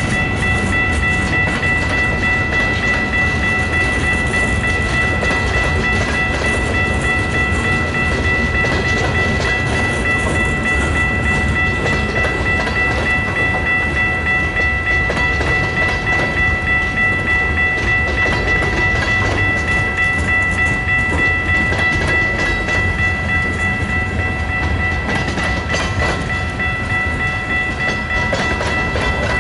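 Freight train of tank cars and covered hoppers rolling past, its steel wheels rumbling and clicking on the rails, with a steady high-pitched squeal over the rumble.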